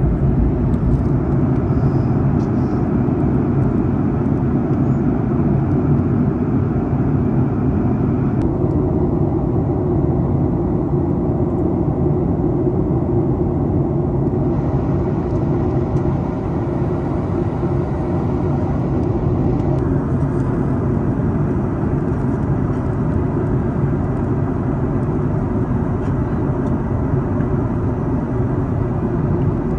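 Steady cabin noise of a jet airliner in cruise, from a window seat beside the wing-mounted engine: an even, low rumble of engine and airflow. Its upper hiss shifts slightly a few times.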